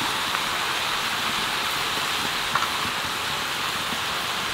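Mixed vegetables sizzling steadily in hot oil and spices in an iron kadai, a continuous hiss, with a few faint ticks as chopped greens are piled on top.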